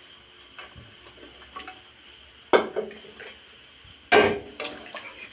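A steel spoon stirring peas into curry in a metal kadai: small clinks and scrapes over a faint steady hiss, with two louder metal clanks, one past the middle and a bigger one about four seconds in.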